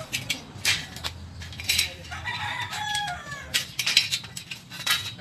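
A rooster crows once, about two seconds in, a call of about a second that falls in pitch at the end. Sharp metallic clicks and taps from steel being handled and measured come and go throughout.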